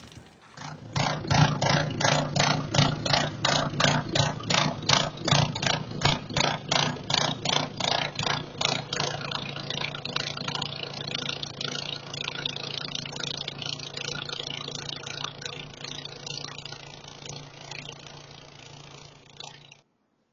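Gasoline snowblower engine running, pulsing about three times a second at first, then running more steadily and fading slightly before cutting off abruptly near the end.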